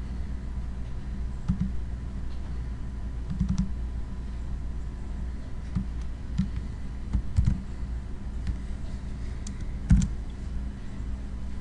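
Computer keyboard and mouse clicks: a handful of short, irregular taps and clicks over a steady low hum, the loudest click about ten seconds in.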